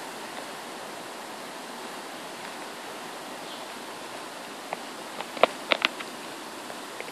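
Heavy tropical-storm rain falling on trees, a steady hiss. A few sharp taps sound close by around five to six seconds in.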